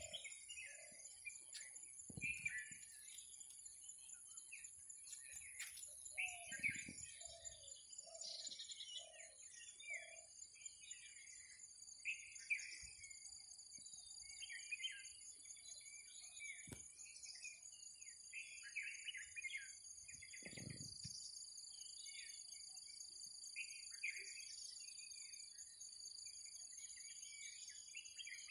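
Rural birdsong: small birds chirping on and off throughout over a steady high insect trill. A short run of about six low hooting calls comes around a quarter of the way in.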